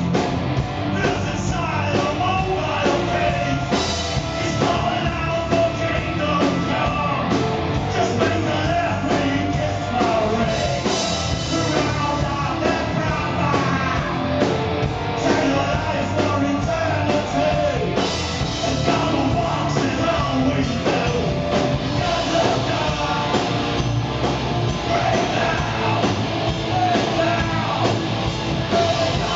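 Live rock band playing: electric guitar, bass guitar and drum kit, with a man singing into the microphone.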